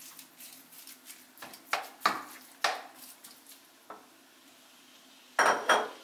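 Raw ground beef being scraped out of a glass bowl with a spatula into a hot, oiled frying pan: a series of short scrapes and knocks of the spatula against bowl and pan, with a faint sizzle from the meat. Two louder clatters come close together near the end.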